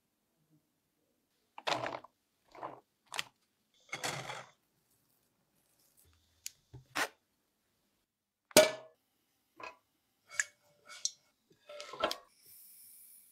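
A string of separate kitchen handling sounds: a metal spoon scraping and clinking as it presses steamed mung beans through a wire mesh sieve over a glass bowl, then sieved mung beans tipped into a nonstick pan. The loudest is a sharp knock over halfway through, and a short hiss comes near the end.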